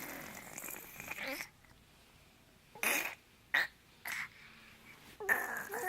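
A young child imitating snoring with a string of breathy throat noises: one long one at the start, three short ones, then another near the end.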